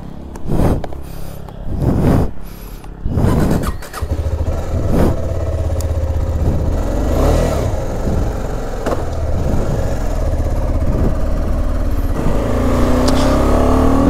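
Single-cylinder KTM adventure motorcycle: a few knocks, then the engine starts about four seconds in and idles steadily. Near the end the engine note rises as the bike pulls away.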